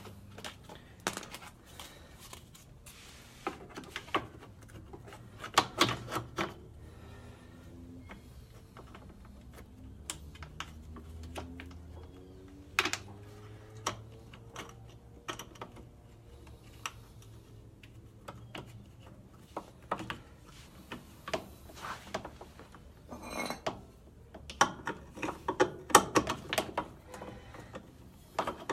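Irregular plastic clicks and knocks as the cover is fitted back onto an Electrolux LBT 12 kg top-loading washing machine, busiest near the start and again near the end, with a quieter stretch in the middle.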